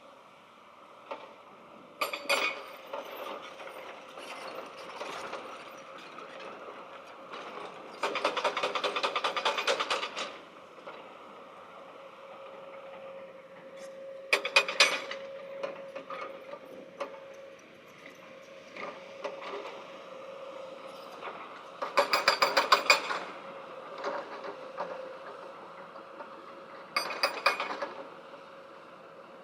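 A machine running with a steady hum, broken five times by bursts of rapid mechanical clicking or rattling, the longest lasting about two seconds.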